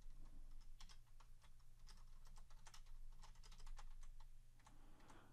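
Faint typing on a computer keyboard: irregular runs of key clicks with short pauses, over a steady low hum.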